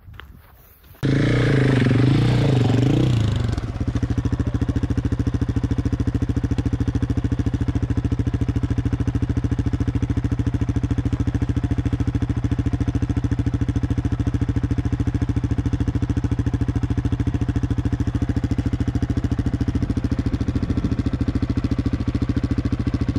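Loaded dual-sport motorcycle's engine revving up and down briefly, then running steadily at an even speed while the bike is muscled over rock ledges.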